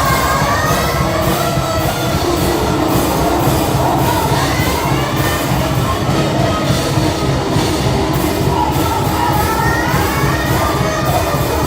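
Live band performing a rock song, loud and dense, with a wavering lead line near the start and again towards the end.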